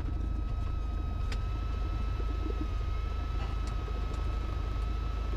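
Cessna 172's piston engine running at low power while taxiing, a steady low drone heard in the cabin, with a thin, steady high tone running through it.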